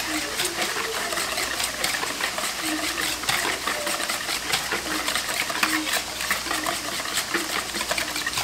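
Wire whisk beating a thin ketchup-based sauce in a plastic bowl: rapid clicking of the wires against the bowl mixed with liquid sloshing.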